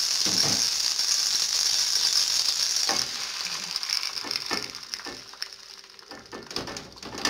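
Oil sizzling and crackling in a hot frying pan. About three seconds in, the sizzle dies down as a round of dough is laid in the pan, followed by soft knocks and rustles of the dough being pressed flat by hand.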